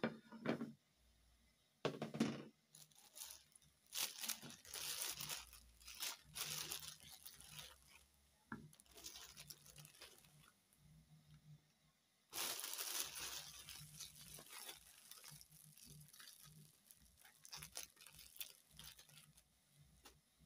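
Thin clear plastic bag crinkling in irregular bursts as a hand works inside it, taking out slices of sandwich bread.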